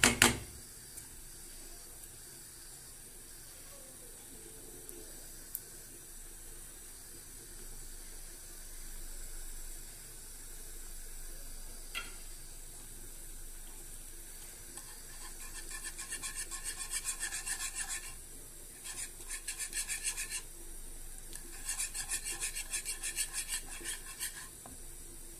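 Wire whisk scraping and beating against a nonstick frying pan, stirring thick béchamel sauce. It is quiet at first, then comes in three bursts of fast whisking strokes in the second half.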